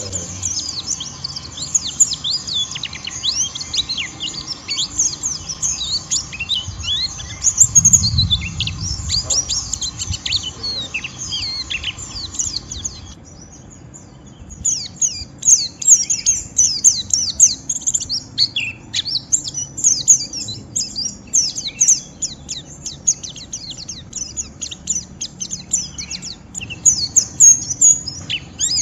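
White-eye (pleci) twittering in its rough, rapid 'ngeriwik' song: dense runs of high, quick chirps that break off for about a second and a half around thirteen seconds in, then start again. There is a low thump about eight seconds in.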